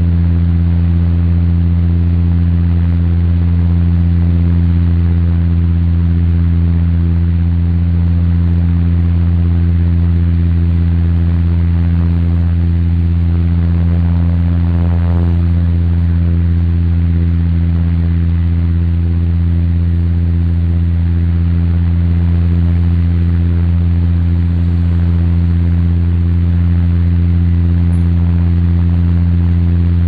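Steady engine drone heard inside a passenger plane's cabin in cruise: a deep, unchanging hum made of several low tones over an even rushing hiss.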